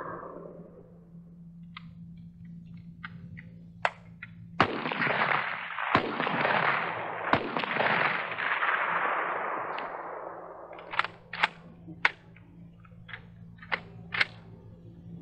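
M14 rifle in 7.62×51 mm NATO fired in single shots: three loud reports about a second and a half apart, each trailing a long rolling echo. Several sharper, shorter cracks follow near the end.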